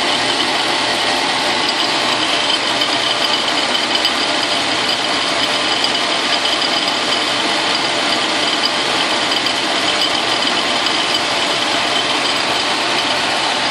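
Logan metal lathe running with an end mill in its collet, milling the tool-post nut block under power feed: a steady machining noise with a constant high whine.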